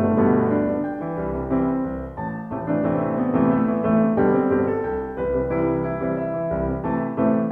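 Background instrumental music: a piano melody with notes changing every fraction of a second.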